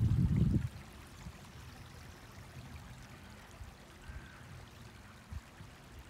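Shallow stream trickling over stones, faint and steady. A loud low rumble on the microphone stops under a second in.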